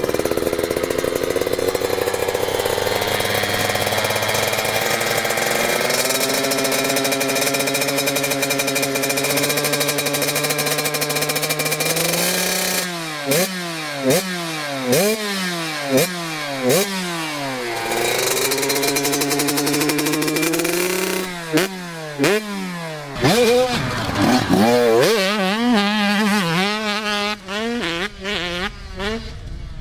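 Youth two-stroke motocross bike's engine running at a steady note, its revs creeping slowly up. About halfway through it is throttled and ridden, the pitch rising and falling quickly over and over, with a short steady stretch between two runs of revving.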